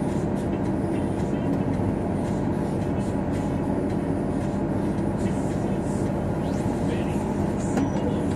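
Steady drone of a car driving at road speed, heard from inside the cabin: tyre and engine noise with a low hum.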